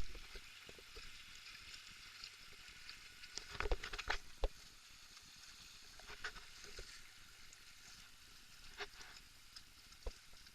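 Steady rushing of river water, with a few sharp knocks: a cluster about four seconds in, then single ones spaced a couple of seconds apart.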